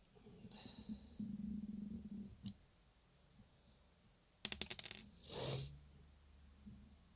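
A small plastic peg dropped, clattering in a quick rattle of about ten clicks as it bounces to rest, followed at once by a short breathy hiss.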